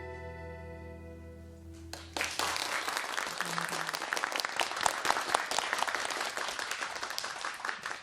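The final notes of a gayageum song ring out and fade away; about two seconds in, the audience breaks into applause, which carries on to the end.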